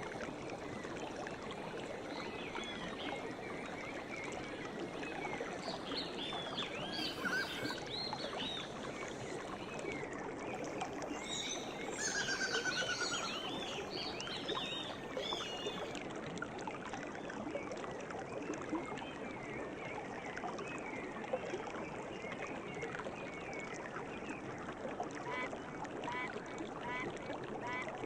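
River water rushing steadily, with songbirds chirping over it: bursts of quick chirps in the middle, a short trill, and a run of repeated short chirps near the end.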